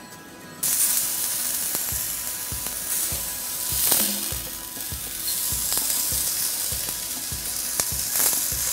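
Chicken breast sizzling in a hot cast-iron skillet, starting suddenly about half a second in, with scattered light clicks of metal tongs against the pan as the chicken is turned.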